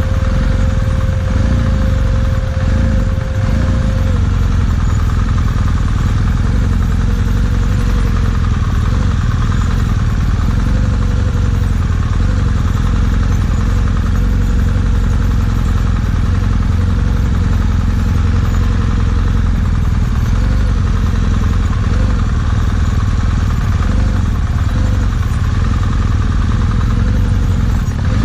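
BMW GS adventure motorcycle running steadily as it is ridden off-road, a loud, even engine-and-riding noise with a heavy low rumble.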